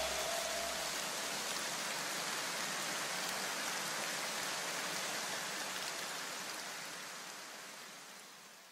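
Steady, rain-like hiss that fades out near the end, left in the soundtrack as the background music ends.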